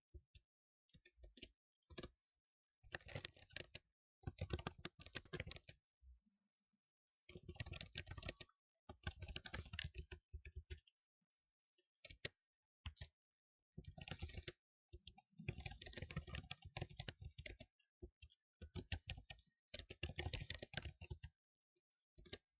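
Typing on a computer keyboard in quick runs of keystrokes, each run a second or two long, with short pauses between them.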